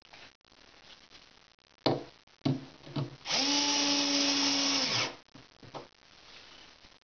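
Bosch GSR 10.8-2-LI 10.8 V cordless drill/driver running steadily for about two seconds as it drives a screw to fix a drawer slide into a pine panel. A few sharp knocks come just before the motor starts.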